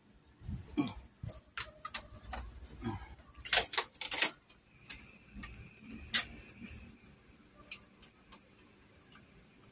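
Small sharp plastic clicks and taps of a cable connector being handled and fitted on an LED TV's main board. There is a quick cluster of clicks a few seconds in and a single louder click about six seconds in.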